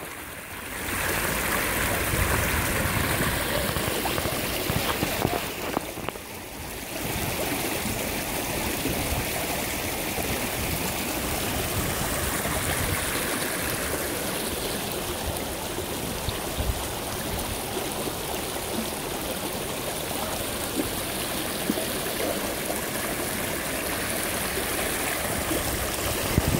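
Shallow stream rushing and splashing over and between rocks: a steady wash of water noise that dips briefly near the start and again about six seconds in.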